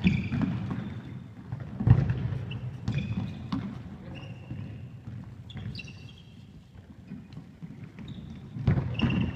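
Indoor five-a-side football in a large sports hall: the ball being kicked and thudding about, with trainers squeaking briefly on the court floor. The loudest kick or thud comes about two seconds in, and there is another cluster of thuds near the end.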